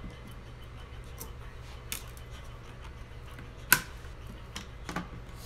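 A few sharp clicks and taps from a screwdriver and screws being worked on a TV's sheet-metal chassis during screw removal. One click about two-thirds of the way through is much louder than the rest. A steady low hum lies underneath.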